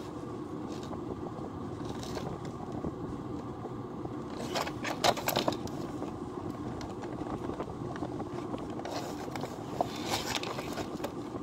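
Doll packaging, a cardboard box with a clear plastic window, crackling and scraping as it is handled, with the loudest bursts about halfway through and again near the end, over a steady low background noise.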